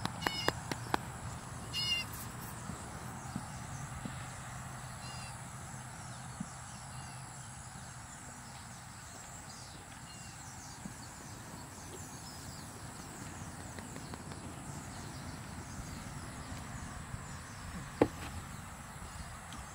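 A few brief, high-pitched animal calls over a faint outdoor background, with light clicks in the first two seconds. One sharp knock comes about 18 seconds in.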